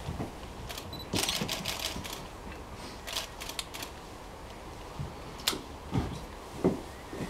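Camera shutters of several cameras firing in quick bursts of clicks: a rapid run about a second in, another about three seconds in, then a single click. A few low thumps come near the end.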